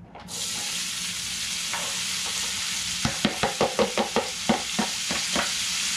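Diced onions and celery hitting hot bacon fat in a cast iron Dutch oven, bursting into a steady loud sizzle. From about halfway through comes a quick run of sharp knocks, several a second, as the celery is emptied out of a plastic container over the pot.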